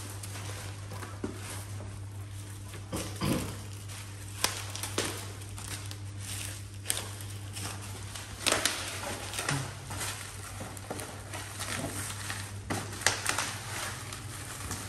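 Bubble wrap and plastic packaging rustling and crinkling as a laptop is handled and unwrapped by hand, with scattered sharp crackles and taps. A steady low hum runs underneath.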